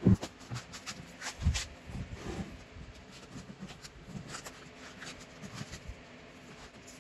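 Handling noises as a sheet of plastic contact film is wrapped around a staved wooden drum: scattered crinkles and light taps, with a sharp knock at the very start and a dull thump about a second and a half in.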